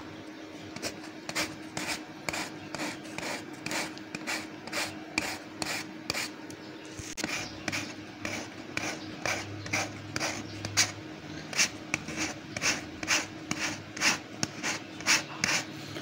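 Rubber inner tube of a bike being scuffed around the puncture with a sandpaper-like rasp, roughening it for the patch. Quick rasping strokes, about three a second, growing louder in the second half.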